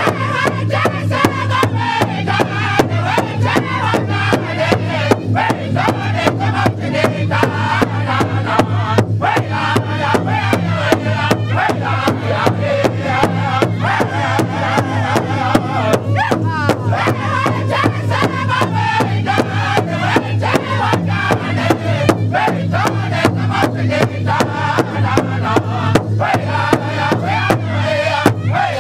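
A powwow drum group singing together in a chant while striking one large shared drum in a steady, even beat.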